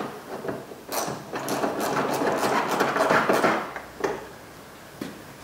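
Ratchet with a 10 mm socket clicking rapidly as it turns the bolt that holds down the air filter housing, for about three seconds from about a second in.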